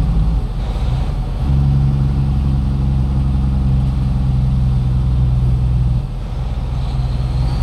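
Truck engine heard from inside the cab while driving, with road noise. It settles into a steady, even note about a second and a half in, then eases off about six seconds in.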